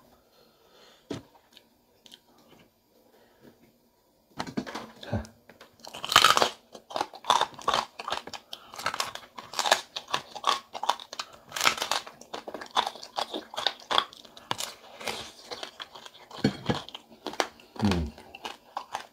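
Close-up crunching of crispy deep-fried pig tail being bitten and chewed, a fast, irregular run of crackling bites and chews that begins about four seconds in after a few nearly quiet seconds with faint clicks.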